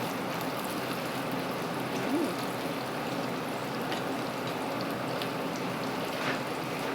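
Flour-coated chicken skin deep-frying in hot oil: a steady sizzle with a few small pops.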